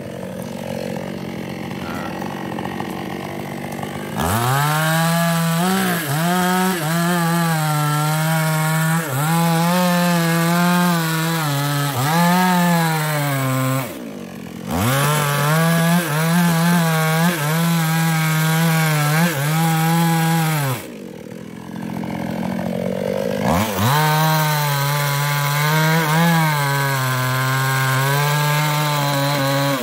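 Small New West two-stroke chainsaw cutting sengon trunks at high revs, its engine note sagging and recovering again and again as the chain bites into the wood. The sound is lower for about the first four seconds, then cuts out abruptly twice, briefly around the middle and for a couple of seconds past two-thirds in.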